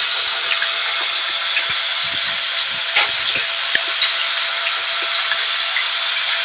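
Vacuum cleaner running steadily mixed with rain: an even, high hiss with a faint steady motor whine, scattered with small ticks of drops.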